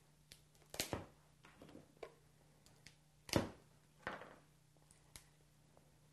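Legs of a boiled crab being snapped off at the joints by hand: scattered faint cracks and crunches of shell, the loudest a little over three seconds in.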